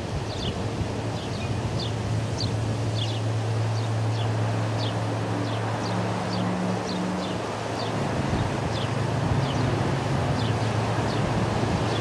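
Ospreys on the nest giving a run of short, high, chirping calls, about two a second, over wind rushing across the microphone. A low steady hum runs under it for much of the time.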